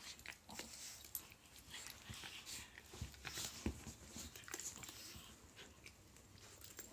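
A pug and a Jack Russell-type puppy play-wrestling on a blanket: soft, irregular scuffling and mouthing sounds, with no barking.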